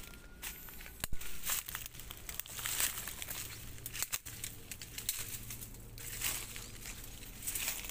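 Footsteps pushing through dry undergrowth: leaf litter and twigs crunching and rustling in irregular crackles, with one sharp snap about a second in.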